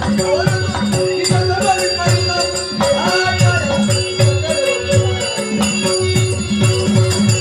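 A man singing a Marathi folk-style song over a steady drum beat of about two strokes a second and a sustained drone-like accompaniment.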